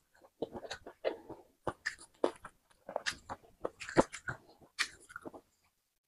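Close-miked eating sounds: a string of irregular wet smacks, crunches and cracks as food is bitten, chewed and pulled apart by hand, thickest about four seconds in.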